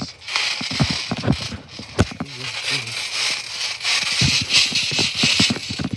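Backyard trampoline under people shifting and stepping on it: irregular thumps from the mat with rattling from the frame and springs, over a steady hiss.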